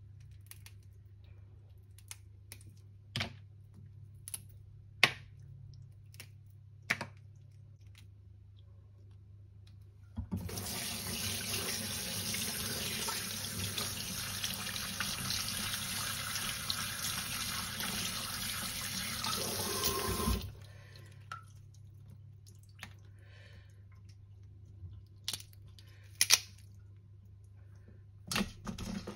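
Water running from a tap for about ten seconds, starting and stopping abruptly. Scattered clicks and knocks before and after it.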